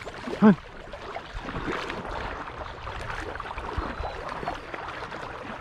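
Water sloshing and splashing as someone wades through a shallow marsh. About half a second in comes one brief, loud voiced call.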